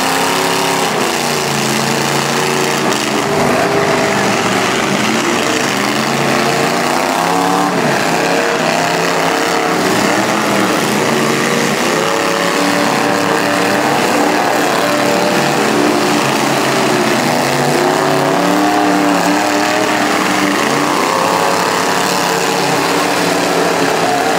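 Several demolition-derby truck engines running and revving at once, their pitches rising and falling against each other.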